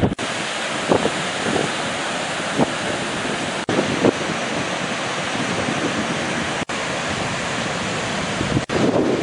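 Wind buffeting the microphone over the steady rush of ocean surf, broken three times by a split-second dropout.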